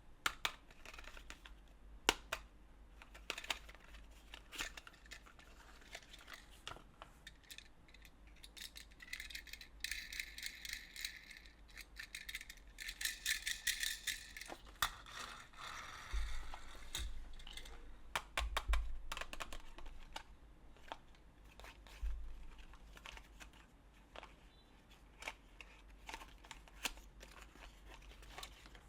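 Plastic toy train-set pieces clicking and rattling: a run of irregular small clicks, with a denser stretch of rattling in the middle.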